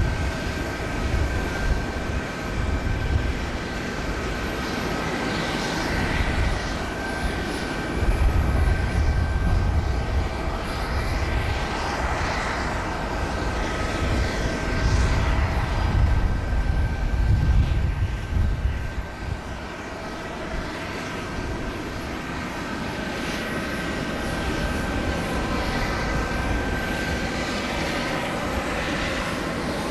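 Jet aircraft engines running at an airport: a steady high whine over a low rumble that swells for several seconds and then eases off about two-thirds of the way through.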